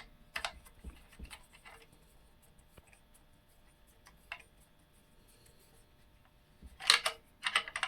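Small clicks and scrapes of metal bolts being worked by hand into a tight 3D-printed plastic connector, quiet in the middle, with a cluster of louder clicks near the end.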